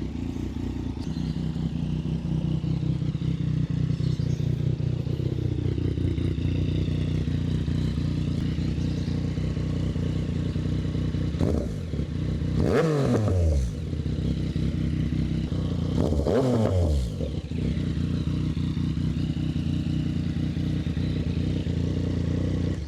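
Yamaha MT-09's crossplane inline-three engine with a Termignoni exhaust idling steadily, blipped twice about four seconds apart, the revs rising quickly and dropping back to idle each time.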